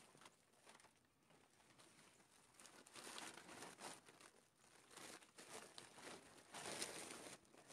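Quiet rustling and crinkling of a dog food bag being handled, in irregular bursts starting about two and a half seconds in.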